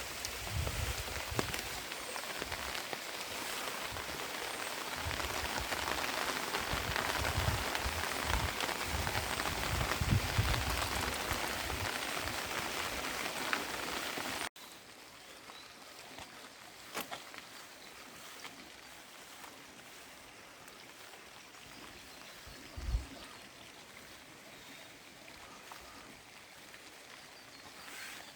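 Rain falling steadily, with low thumps against the microphone. About halfway it cuts abruptly to a much quieter, softer hiss of rain with a few faint chirps.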